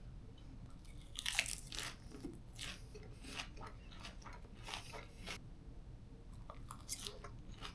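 Crunchy chewing of a mouthful of Caesar salad: a run of crisp crunches for the first five seconds or so, then a few sparser ones near the end.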